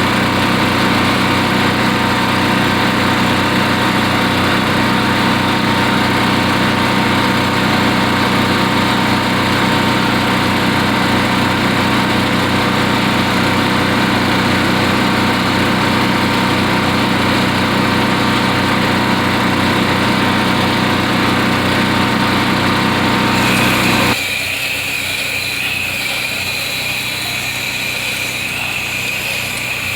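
Pressure washer engine running steadily while spraying. About 24 seconds in the sound changes abruptly: the low engine rumble drops away, leaving a quieter hiss with a steady high whine.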